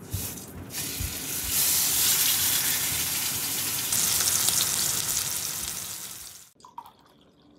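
A thick beef steak sizzling and frying in hot oil in a black skillet, with a couple of low thuds in the first second as it goes in. The sizzle grows louder about a second and a half in and cuts off suddenly near the end.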